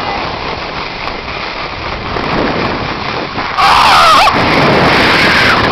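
Wind rushing over the camera microphone as a loud, steady roar of noise. About three and a half seconds in, a person lets out a short, loud, wavering yell.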